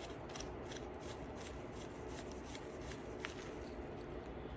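Beading needle scooping small beads from a pile: a faint run of tiny clicks and rustles, with one sharper click about three seconds in.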